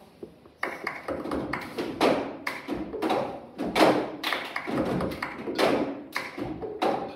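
Rhythmic tapping, thumping and clapping of a cup-game routine, with cups and hands struck on a tabletop at about two to three strikes a second, starting about half a second in and echoing in a large hall.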